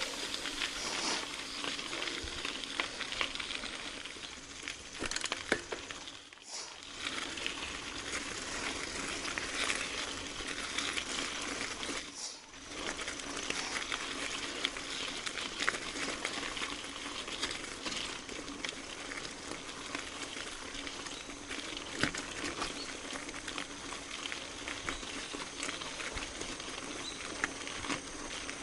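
Mountain bike riding over a rough trail: a steady crackle of tyres rolling over dirt and gravel, full of small clicks and rattles, dipping briefly twice.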